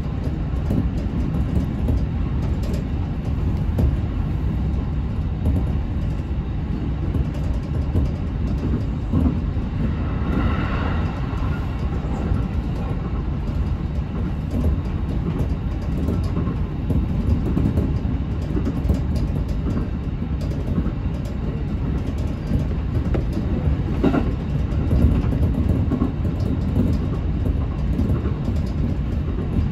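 Running noise of a JR local electric train heard from inside the car: a steady low rumble of wheels on rail with faint clicks from the rail joints. About ten seconds in, a brief higher ringing tone passes by.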